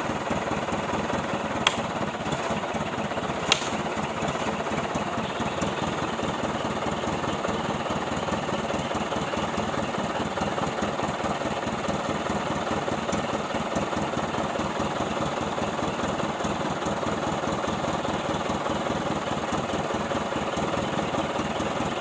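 Old truck engine running steadily with a rough, clattering knock, with two sharp clicks in the first few seconds.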